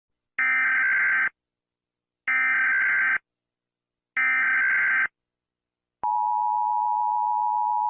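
Emergency Alert System opening: three identical bursts of screeching digital data tones (the SAME header), each about a second long and two seconds apart, followed about six seconds in by the long, steady EAS attention tone.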